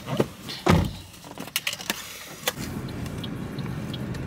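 A car door thumping shut, with smaller knocks and clicks around it, then a steady low hum.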